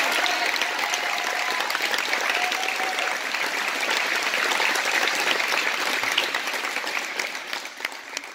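Audience applauding, a dense patter of clapping that thins out near the end.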